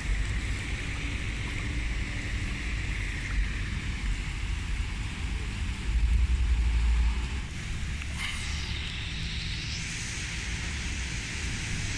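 Steady hiss of water and traffic on a flooded street. Wind buffets the microphone about six seconds in, and about eight seconds in a hiss dips in pitch and rises again.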